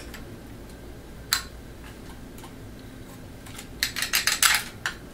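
Plastic and metal clicks from a Crosman C11 CO2 pistol being handled as its CO2 cap is screwed back on: one sharp click about a second in, then a quick run of clicks and rattles near the end.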